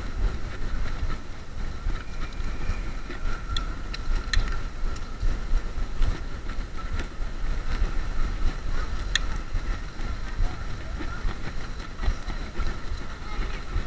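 Xiaomi Mijia M365 electric scooter being ridden along a tarmac road: a steady low rumble with a thin steady whine over it, and a few sharp rattling clicks over bumps.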